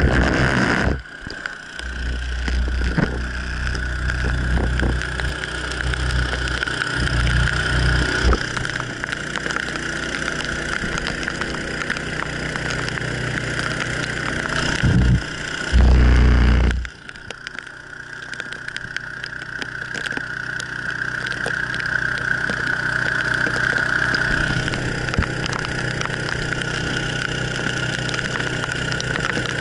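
Outboard motor running steadily, with a constant high whine, under a wash of rain and wind noise. Loud low rumbles, wind buffeting the microphone or the hull pounding, come in from about one to eight seconds in and again around fifteen to seventeen seconds.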